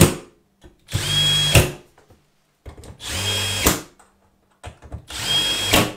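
Cordless drill-driver running in three short bursts of under a second each, each ending in a sharp click, as it drives the bolts that fasten a TV-mount wing bracket to the wall through Toggler anchors.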